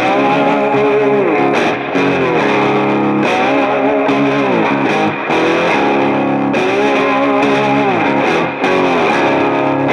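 Music led by a distorted electric guitar, playing sustained notes with repeated downward pitch bends.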